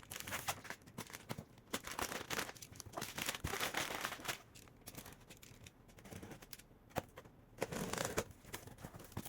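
Cardboard packaging and plastic wrapping foil being handled and pulled open: irregular crinkling and tearing with scattered light knocks, with longer rustles about three seconds in and again near the end.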